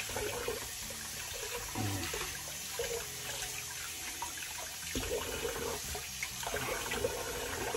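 Water running steadily from a bathroom sink tap, as in rinsing a razor during a wet shave.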